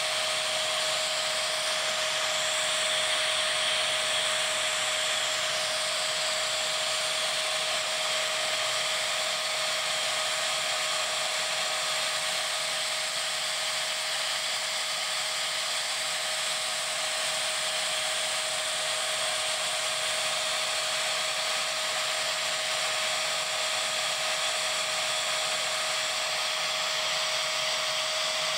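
Siemens Green Power Edition vacuum cleaner motor screaming at a steady high pitch over rushing air, its intake fully blocked by a vacuum gauge so it is starved of airflow and pulling close to 2000 mm of water.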